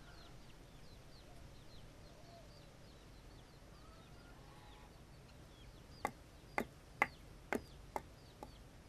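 Faint chirping of small birds in the background. From about six seconds in comes a run of six sharp clicks, roughly two a second, like footsteps on a hard floor.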